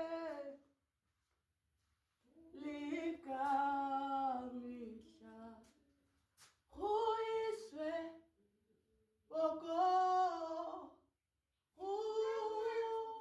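A voice singing unaccompanied in short, held phrases, with silent pauses between them.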